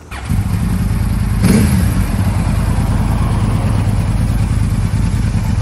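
Yamaha YZF-R1 sport bike's inline-four engine idling steadily, with one quick throttle blip about one and a half seconds in.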